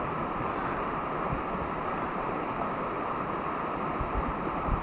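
Steady rush of flowing river water, with a few brief low bumps of wind on the microphone near the end.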